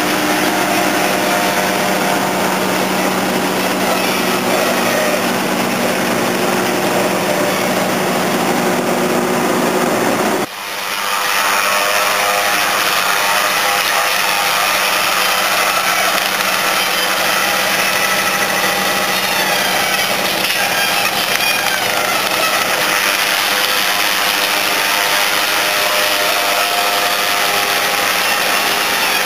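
John Deere self-propelled forage harvester with a Biopoplar felling header working under load: a steady, loud din of engine and cutting gear as it cuts and chips standing poplar stems. About ten seconds in the sound dips briefly and comes back with less bass.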